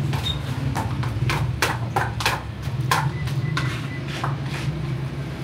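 Irregular sharp knocks and clinks of dishes and utensils over a steady low mechanical hum.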